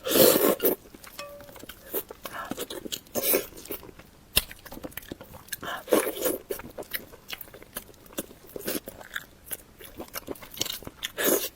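Close-miked eating of a salmon head: irregular biting, crunching and wet chewing mouth sounds.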